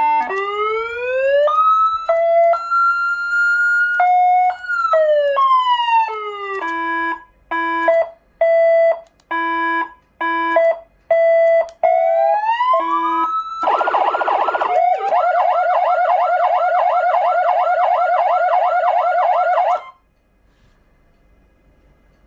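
SA830 400-watt electronic siren amplifier through its speakers, stepping through its tones: a rising and falling wail, a choppy run of short two-pitch tones, another rising glide, a brief buzzy horn-like blast, then a fast warbling yelp of about three to four cycles a second. The yelp cuts off suddenly near the end.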